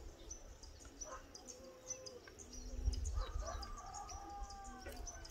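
A rooster crowing, one long drawn-out call starting about three seconds in, over small birds chirping and wind rumbling on the microphone.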